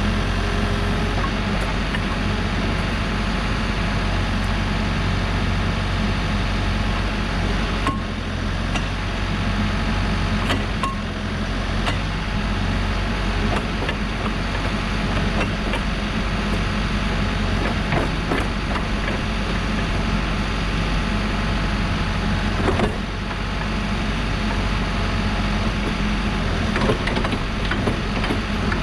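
Diesel engine of a 2014 Case 580SN backhoe loader running steadily just after a cold start, with scattered clicks and knocks over it.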